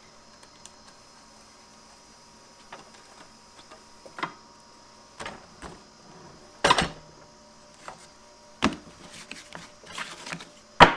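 Scattered knocks and clatters of parts and wood being handled, about half a dozen over several seconds with the loudest about two-thirds of the way through, over a faint steady hum; the saw is not running.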